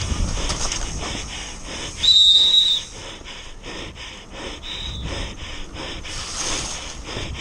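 Mountain bike running down a wet dirt trail: tyre and wind rumble with the rider's heavy breathing. About two seconds in comes a loud, high, steady squeal lasting under a second, typical of wet disc brakes, and a shorter one near five seconds.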